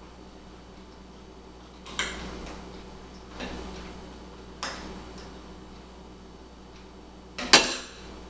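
A metal spoon clinking against a cereal bowl, three light clinks a second or so apart, then a louder sharp knock near the end.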